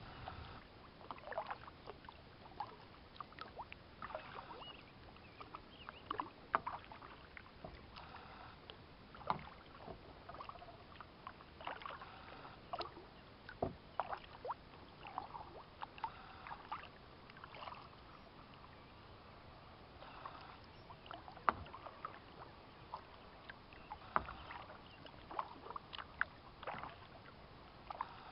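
Kayak paddling: the paddle blades dip into the pond water, with small splashes and drips in an irregular run about every second or two.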